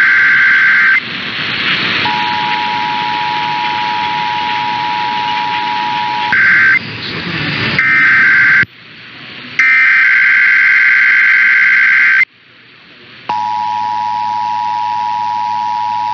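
Emergency Alert System signals. A SAME digital header burst cuts off about a second in. The two-tone EAS attention signal then sounds for about four seconds over radio static. Three more header bursts follow, then a short gap, and the attention signal starts again, cleaner, near the end.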